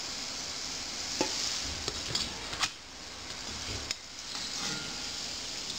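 Corn buñuelos deep-frying in oil at medium heat: a steady sizzle. A metal slotted skimmer clicks against the pot a few times as it scoops out a fritter.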